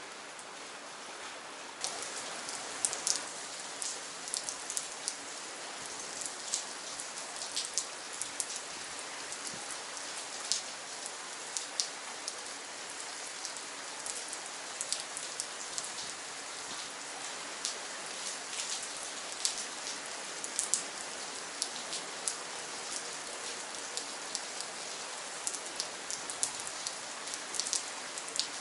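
Steady rain falling, with many sharp, separate drops striking close by over an even hiss. About two seconds in it grows louder and the close drop hits become frequent.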